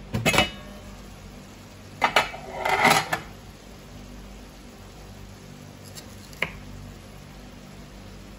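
A metal pan lid clanking as it is lifted off a frying pan and set down. There is a sharp knock right at the start and a louder clatter of metal about two seconds in, followed by a couple of light taps.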